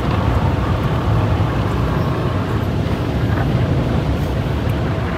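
Automatic tunnel car wash spraying water and foam over the car and scrubbing it, heard from inside the cabin as a steady, low rushing noise.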